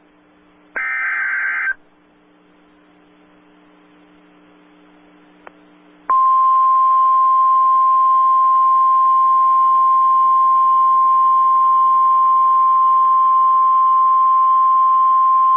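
NOAA Weather Radio emergency alert: about a second in, a one-second burst of the digital SAME header data. A few seconds of faint radio hiss follow. From about six seconds in comes the loud, steady single-pitch 1050 Hz warning alarm tone, which signals that a warning message, here a severe thunderstorm warning, is about to be read.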